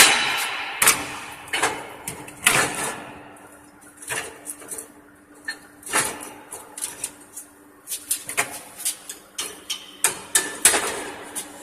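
Stick-welding electrode being struck on steel to start the arc: irregular sharp clicks and short crackling bursts as the arc catches and breaks off again, over a faint steady hum.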